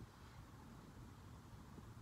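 Near silence: faint, steady low background rumble, with no distinct sound events.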